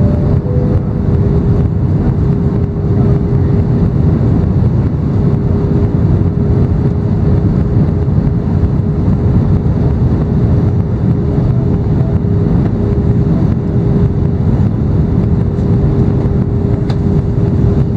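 Airliner cabin noise heard from a window seat on a low descent: a steady, loud rush of engines and airflow, with an even hum running through it.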